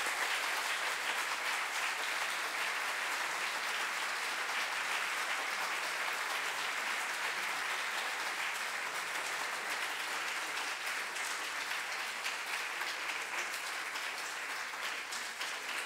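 Audience applause: many hands clapping steadily, easing slightly near the end.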